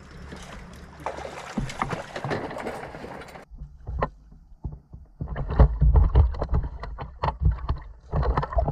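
A landing net dipped in lake water, with water sloshing and splashing around it and knocks and heavy thumps from handling the net, as a hooked sockeye salmon is led toward it. Before that comes a steady hiss of wind and water, which cuts off suddenly.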